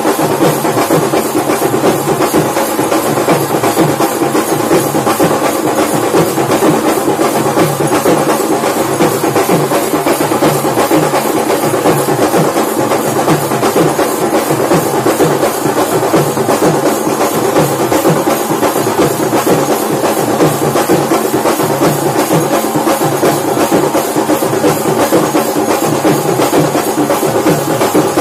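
Dhak drums beaten in a fast, steady rhythm that runs on without a break.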